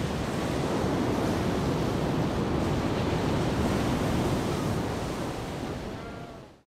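Heavy ocean surf crashing and washing over rocks, a steady rush of breaking waves that fades out just before the end.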